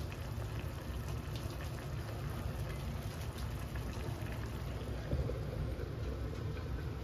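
Eggplant and tofu in coconut-milk sauce simmering in a stainless saucepan: a steady bubbling with small crackling pops. About five seconds in, a glass lid is set onto the pan.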